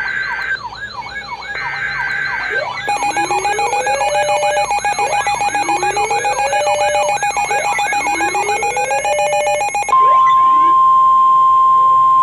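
Electronic emergency sirens sounding together: a fast up-and-down yelp over repeated slow rising wails, growing louder and busier about three seconds in. About ten seconds in, they give way to a single steady high alert tone.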